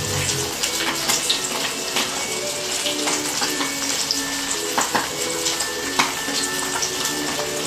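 Water boiling in a pot: a steady bubbling and crackling with scattered pops.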